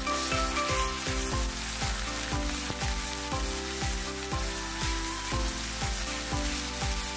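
Onions and ginger-garlic paste sizzling in hot oil in a wok as they are stirred, over background music with a steady beat.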